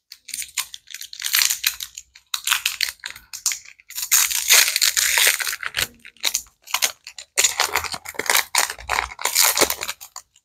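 Foil wrapper of a Lorcana trading-card booster pack crinkling and tearing as it is pulled open by hand, in several bouts of crackling that are loudest about halfway through.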